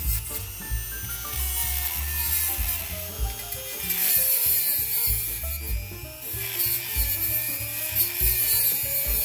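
Handheld rotary tool with a small abrasive cut-off wheel grinding notches into a steel flat-stock block held in a bench vise: a high grinding hiss that swells and fades as the wheel bites into the metal.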